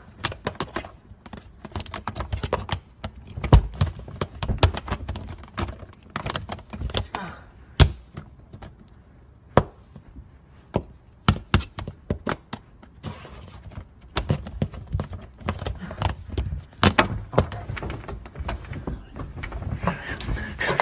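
Phone charger plug tapping and scraping against a phone's casing as it is fumbled at the charging port: irregular clicks and knocks, several a second, a few of them louder.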